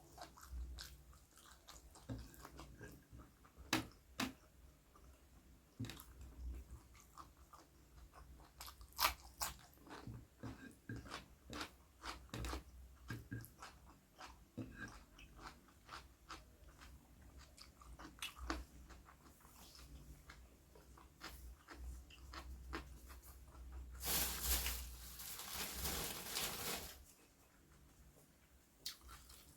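A person eating close to the microphone, chewing and biting with many sharp, irregular crunches. Near the end comes a few seconds of denser hissing noise.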